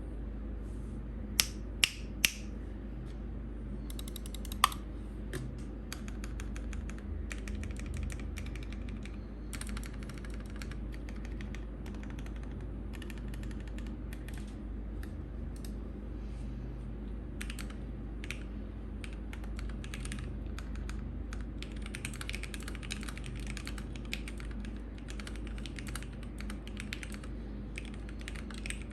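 Typing on a gasket-mounted KBD67 Lite R3 mechanical keyboard with lubed, filmed Gateron Milky Yellow linear switches and PBT keycaps: a dense, irregular run of keystrokes. A few much sharper, louder clacks come in the first five seconds.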